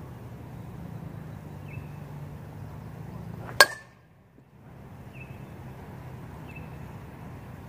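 A metal bat hitting a pitched ball once about three and a half seconds in: a sharp ping with a brief ring.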